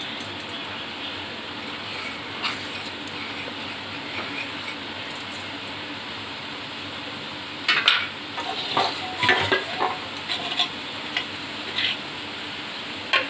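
Semolina halua cooking in an aluminium kadai on a gas stove, a steady low sizzle, with a run of light utensil clinks and knocks in the second half.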